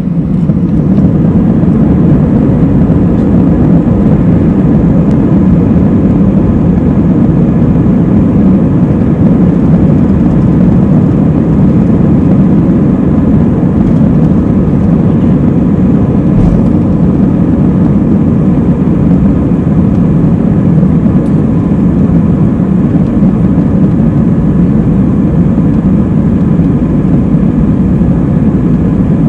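Steady jet airliner cabin noise while the plane rolls along the ground: a loud, even low rumble of the engines and wheels with a faint hum above it.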